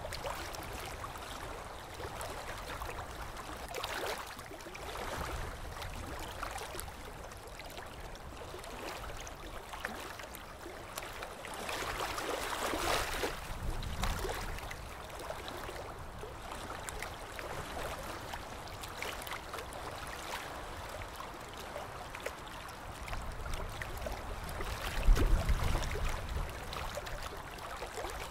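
Harbour ambience: a steady wash of water and boat noise, swelling to a louder rush a little before halfway and peaking in a short low rumble near the end.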